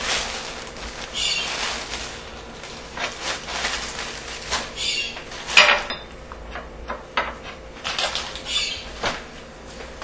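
Plastic bread bag crinkling and rustling as slices of bread are handled, with light taps and clinks of food being set on a china plate. One sharper clack, the loudest sound, comes about halfway through.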